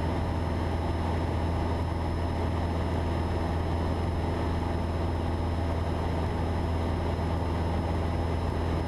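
Cessna 172's piston engine and propeller droning steadily in level flight, heard inside the cabin.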